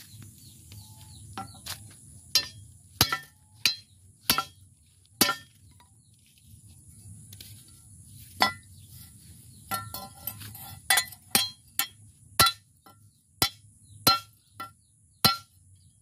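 Hand hammer striking a small metal part laid on a stone: about twenty irregular blows, each with a short metallic ring, with a pause of a couple of seconds midway.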